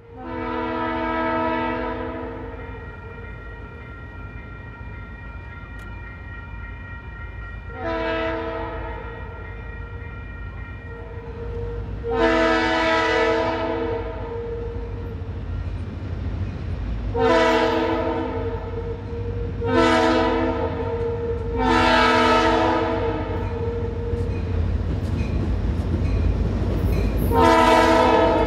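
Diesel freight locomotive's air horn sounding a chord for the grade crossing as the train approaches. It gives a long blast, then a short one, another long one, three more blasts close together, and a last blast near the end. Under it the diesel engine's low rumble grows louder as the locomotive draws near.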